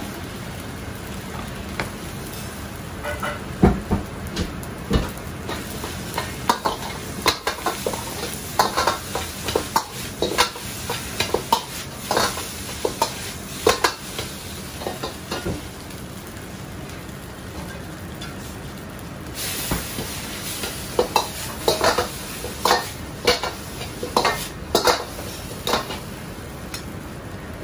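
A metal ladle scraping and clacking rapidly against a wok as egg fried rice is stir-fried, over a steady sizzle and burner rush. The clacking pauses for a few seconds just past the middle, then resumes.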